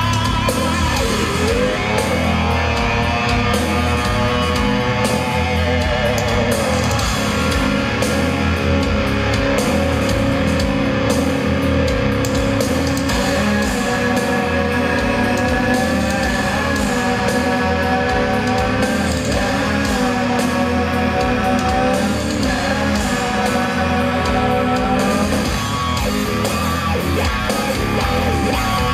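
Live heavy rock band performance: distorted electric guitars, bass and drums with sung lead vocals, heard from the audience in a large hall.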